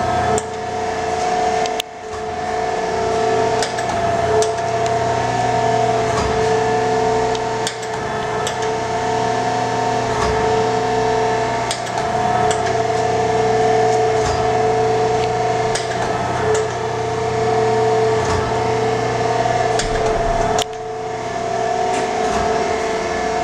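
Steady machinery hum made of several held tones, with irregular clicks and knocks every few seconds.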